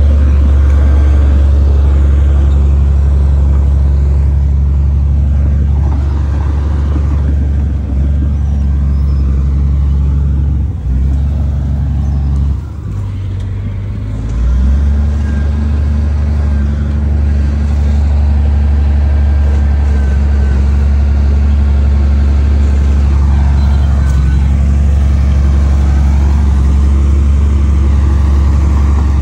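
Komatsu D58P crawler bulldozer's diesel engine running under load in a steady low drone. It dips for a few seconds about midway, then picks back up.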